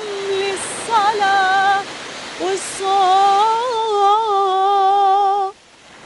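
A woman's voice singing a slow, wordless melody over a steady rushing noise. The melody ends on a long held note with vibrato that breaks off shortly before the end.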